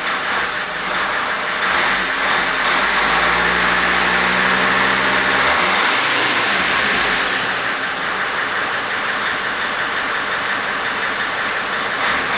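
2005 Dodge Sprinter's 2.7-litre five-cylinder turbodiesel being revved hard: the engine note holds a steady pitch for a few seconds, climbs sharply about six seconds in, and a loud rushing hiss sits over it throughout.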